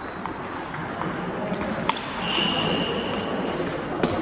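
Table tennis ball clicking off bats and table in a rally, about every half second, the last and loudest click nearly two seconds in. A steady high squeak follows for about a second, over the hum of a busy sports hall.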